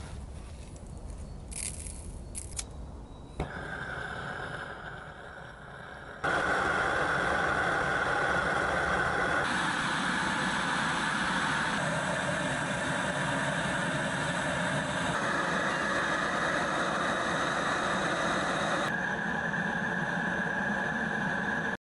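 Gas kiln burner firing, a loud steady rushing noise that comes in abruptly about six seconds in, its tone shifting slightly a few times. Before it, a quieter stretch with a few sharp clicks.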